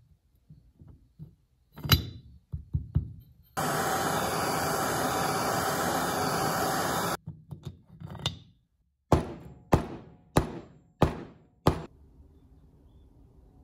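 Light knocks, then a handheld gas torch hissing steadily for about three and a half seconds as it heats a bent steel clamp-handle stud to straighten it. Later come five sharp, evenly spaced knocks about two-thirds of a second apart.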